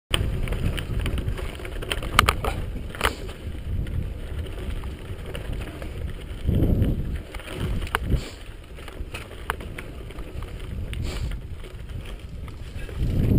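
Mountain bike riding down a rocky, loose-gravel singletrack, heard from a helmet-mounted camera: a steady low rumble of tyres and wind on the microphone, with scattered sharp clicks and knocks as the bike rattles over stones. A louder swell of rumble comes about halfway.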